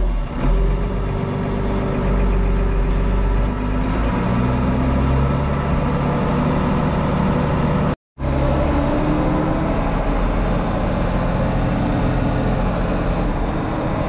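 Old farm tractor's engine running steadily as the tractor drives off in first gear, its note shifting slightly in the first few seconds. The sound cuts out for a moment about eight seconds in, then the engine continues.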